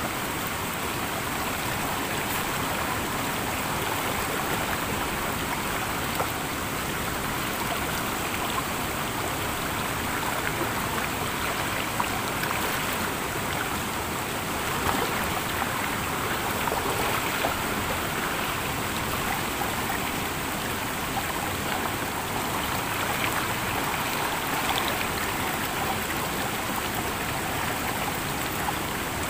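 Steady rushing and babbling of a clear mountain stream flowing over rocks, heard close to the water. A few brief louder splashes come from a person bathing in the pool.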